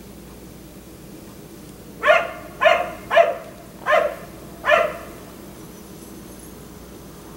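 A black Labrador retriever barks five times in quick succession, starting about two seconds in, then falls silent.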